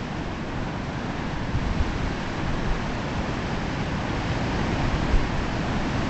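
Pacific surf washing and breaking over a rocky shore, a steady rushing noise, with wind buffeting the microphone in low rumbling gusts.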